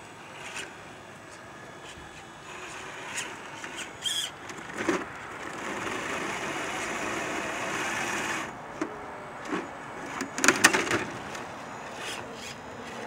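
Radio-controlled rock crawlers (a Traxxas TRX-4 and an Axial SCX10 II) crawling over loose rocks. Their electric motors and geartrains whir steadily through the middle of the stretch. Tyres and chassis click and knock against stones, with a loud clatter about ten and a half seconds in.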